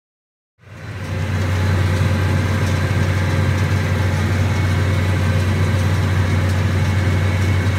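Case IH Maxxum 125 tractor engine running steadily at a constant speed, fading in about half a second in.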